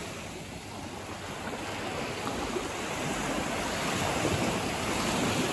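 Sea waves of an incoming tide washing up the beach: a steady surf noise that builds slowly in level.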